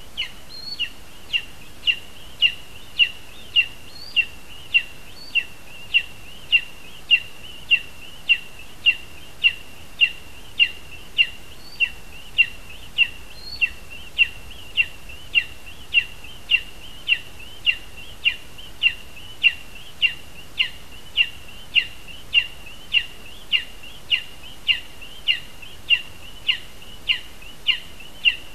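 Lesser spotted eagle calling, one short downward-slurred call repeated evenly and without a break, a little under twice a second. A few faint, higher chirps now and then.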